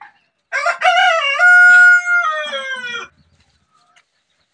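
A rooster crowing once: a single crow about two and a half seconds long, beginning about half a second in with short wavering notes, holding one steady note in the middle, then falling away in pitch at the end.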